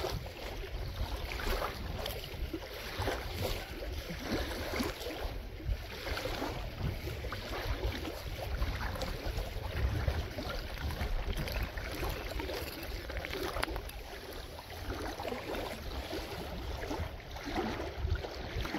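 Wind rumbling on the microphone over a steady patter of rain, with small crackles and scrapes as a magnet-fishing rope is hauled in up a wet concrete boat ramp.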